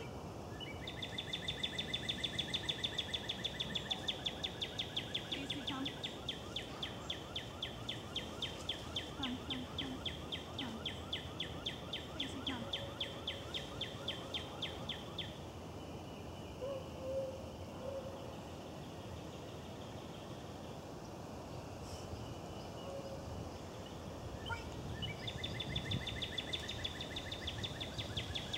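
A high-pitched, rapidly pulsing trill that runs for about fifteen seconds, stops, and starts again a few seconds before the end, over faint outdoor background noise.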